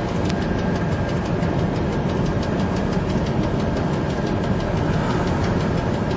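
Train running at speed along the track, heard from inside the driver's cab: a steady rumble with a fast, even run of faint clicks.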